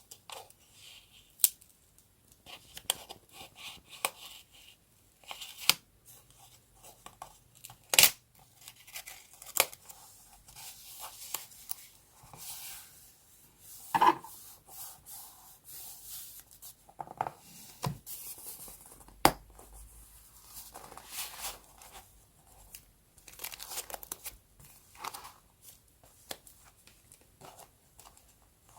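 Scrapbooking paper and stickers being handled: tearing, rustling and crinkling, with sharp taps and clicks at irregular moments throughout.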